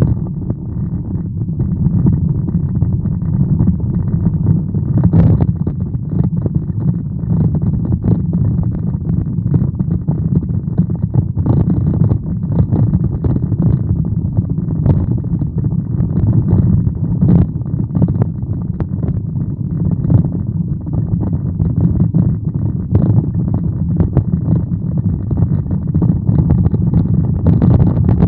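Steady low rumble of a car's engine and tyres on the road, heard from inside the cabin while driving, with scattered faint ticks.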